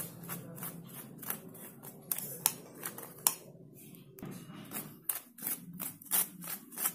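A silicone spatula scraping and pressing flour and cocoa through a fine stainless-steel mesh sieve. It makes quick, scratchy strokes a few times a second, more frequent in the second half.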